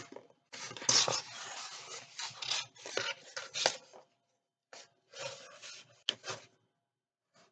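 Cardboard box being handled and opened: cardboard scraping and rubbing against cardboard as a box slides out of its mailer and its lid flap is lifted, in several bursts with a sharp click about six seconds in.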